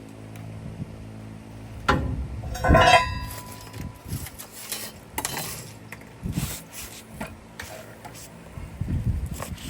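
Metal clanks and clatter from tools and parts being handled. The two loudest knocks come about two and three seconds in, the second ringing briefly, followed by lighter knocks and scrapes.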